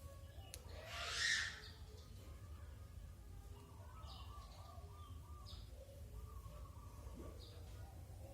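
Faint short bird chirps every second or two over a low steady hum, with one brief louder rustling swish about a second in.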